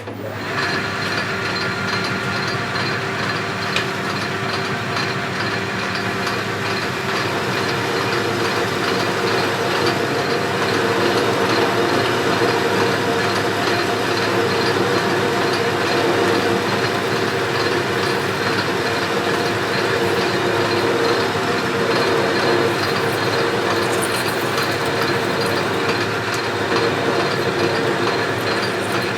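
South Bend 13 metal lathe starting up and running steadily while facing the end of a metal part, with a steady machine hum and gear whine.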